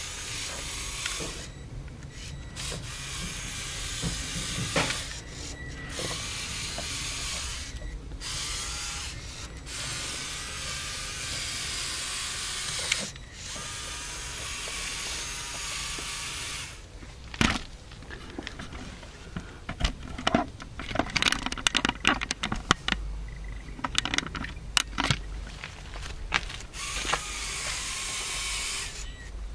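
Electric motors of a Lego Technic crawler whining through plastic gears, stopping and starting several times. From about halfway on, many sharp clicks and knocks of plastic parts.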